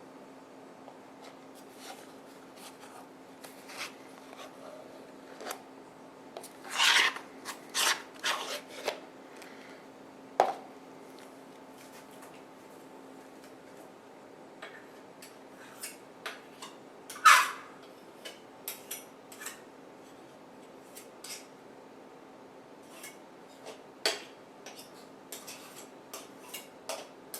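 Intermittent scraping and clinking of a knife working thick spackle into a scoop and container, in irregular strokes with a few louder clacks, over a faint steady hum.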